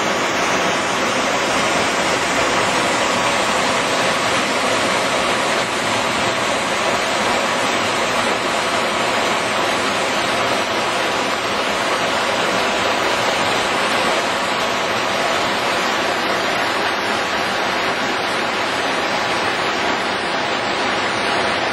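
Stormwater runoff after a hard rain rushing as turbulent white water over rocks in a swollen ravine stream: a loud, steady rush of water.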